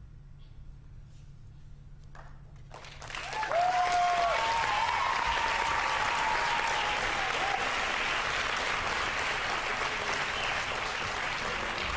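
A theatre audience bursts into applause about three seconds in and keeps clapping steadily, with a few cheers and whoops near the start of the clapping.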